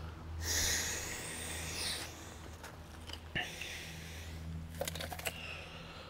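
Can of spray foam insulation hissing for about a second and a half as foam is forced through a drilled hole into a flat tire, followed by a few sharp clicks and knocks of handling, over a steady low hum.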